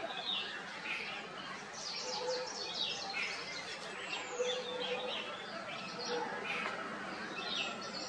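Many small birds chirping over a steady background hiss, with a high whistled note sliding down in pitch about four seconds in and again near the end.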